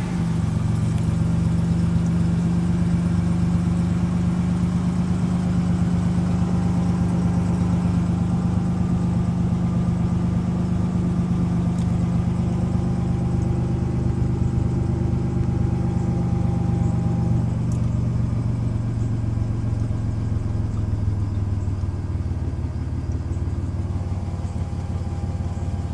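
Nissan 300ZX Z31's turbocharged 3.0-litre V6 idling steadily just after starting, the idle easing down a little in the last third as it settles to a smooth idle.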